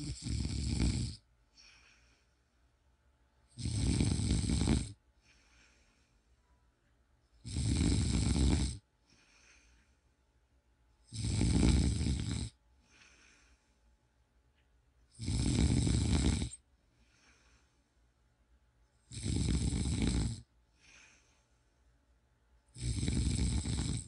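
A man snoring in deep sleep: a loud snore about every four seconds, seven in all, each followed by a brief, fainter breath.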